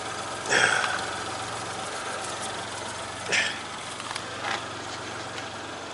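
Car engine idling steadily, with a few short, sharp knocks from handling parts under the bonnet: the loudest about half a second in, and smaller ones around three and four and a half seconds.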